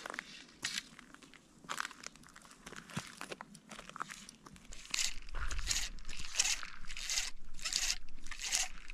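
Fly line being pulled off a fly reel and handled in a run of short rasping pulls, starting about five seconds in over a low rumble. Before that there are only faint scattered rustles.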